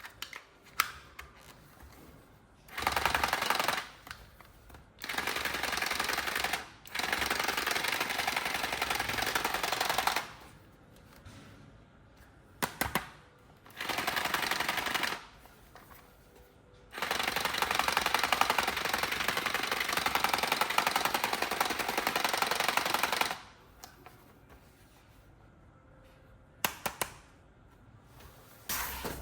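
Battery-powered toy gun firing its rapid rattling sound in repeated bursts, the longest lasting about six seconds.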